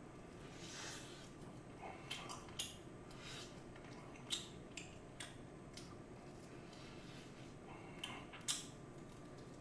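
A person biting and chewing seasoned fried chicken: scattered short crunches and chewing sounds, the loudest crunch near the end, over a faint steady background hiss.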